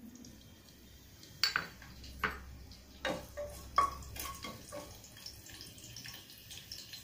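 Kitchen utensils and dishes clinking and knocking: a few sharp clinks, some with a brief ringing note, starting about a second and a half in and coming every second or so until about five seconds.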